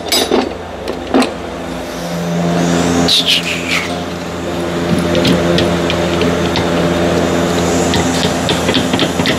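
Light metal clicks and scraping as a pry bar is levered against a rusted rear brake caliper, over a steady machine hum that grows louder about two seconds in.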